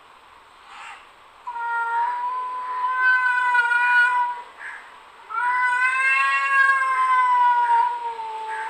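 Domestic cat yowling: two long drawn-out calls of about three seconds each, the first starting about a second and a half in and the second, which swells and then falls away at its end, following a second later.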